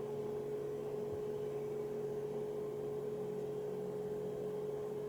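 A steady hum with one clear, steady higher tone held over it throughout, with no other events.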